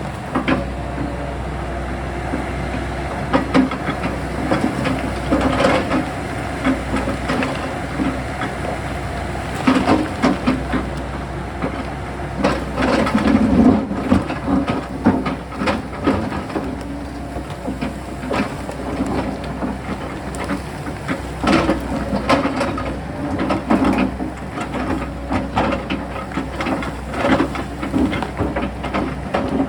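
Sany mini excavator's diesel engine running steadily under load, with irregular knocks, clanks and scraping as the bucket digs into rock and soil on the hillside.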